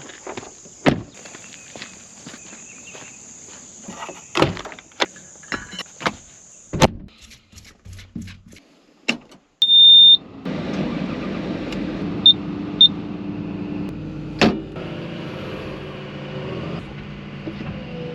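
Clicks and knocks in a tracked excavator's cab, then a loud beep, and about ten seconds in the excavator's engine starts and runs steadily, with two short beeps soon after.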